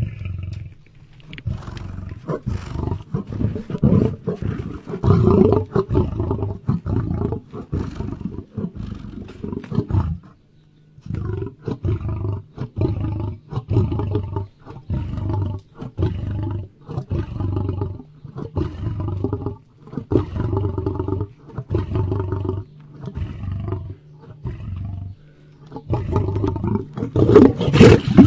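Lion roaring in a long series of short, repeated roars, about one a second. There is a brief pause about ten seconds in, and the calls are loudest near the end.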